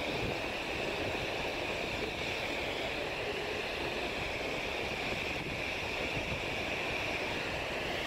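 Steady wash of wind and water noise with a low rumble underneath, unchanging throughout.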